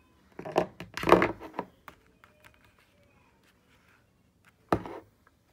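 Handling noise as a plastic toy dinosaur and a picture book are moved about: a rustle and knocks in the first second and a half, then a single thunk near the end.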